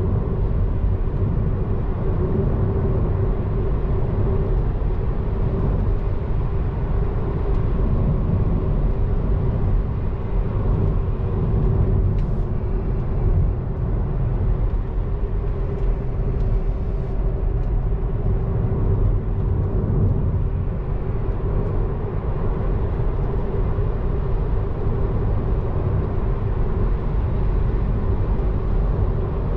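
Car cruising steadily at motorway speed, heard from inside the cabin: a constant low tyre and road rumble with a steady hum over it.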